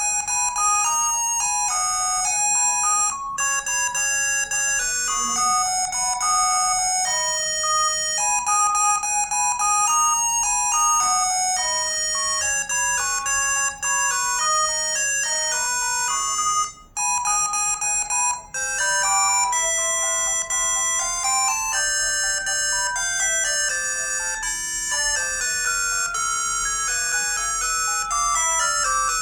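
ZTE V617 mobile phone ringtones playing, electronic melodies of quick notes with almost no bass. Two short breaks past the middle, after which a different tune plays.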